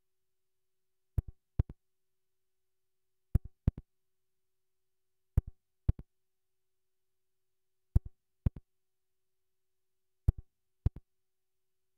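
Five pairs of short, sharp clicks, the second of each pair a fraction of a second after the first, repeating about every two seconds over a faint steady hum.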